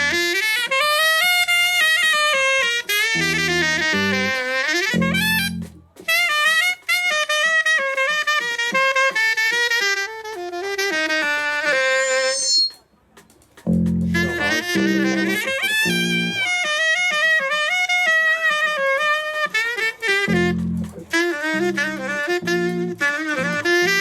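Miked saxophone playing a jazzy melodic line with vibrato and slides, for a sound check. Short low accompanying notes sound underneath at several points, and the playing breaks off briefly about six seconds in and again around thirteen seconds.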